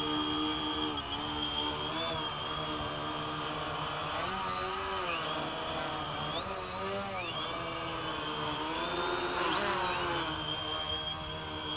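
Quadcopter's electric motors and propellers buzzing in a hover. The pitch holds steady at first, then wavers up and down from about four seconds in as the motors speed up and slow down to hold the craft, and settles steady again near the end.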